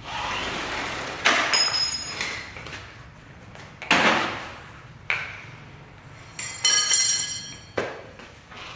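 Metal striking metal: about six sharp knocks at irregular spacing, several leaving a brief bright ringing tone, after a short hiss in the first second.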